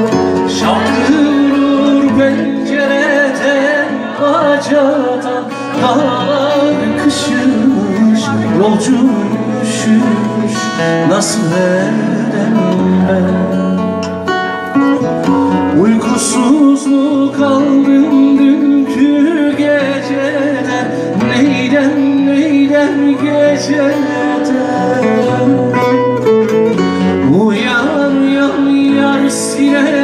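A man singing a Turkish folk song live, accompanied by a strummed steel-string acoustic guitar.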